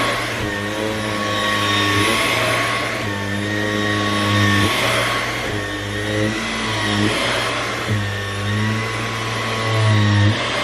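Dyson V11 cordless stick vacuum running on a fabric sofa, a steady suction noise with a low hum in it that breaks off and comes back every second or two as the tool is worked over the cushions.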